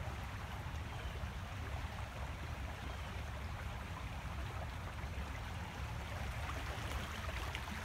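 Stormwater runoff rushing along a shallow drainage trench, a steady flowing-water noise with a low rumble underneath; the trench is overwhelmed by the volume of water running in from the neighbourhood.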